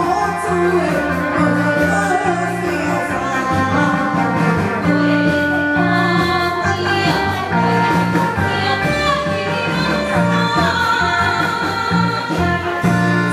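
Women's voices singing a song through microphones over amplified backing music with a steady beat, played through a stage loudspeaker system.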